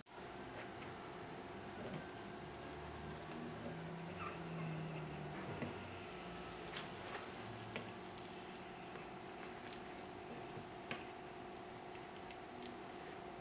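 A red-hot metal ball sizzling and crackling against the material it is set on, with scattered sharp pops, over a steady hum.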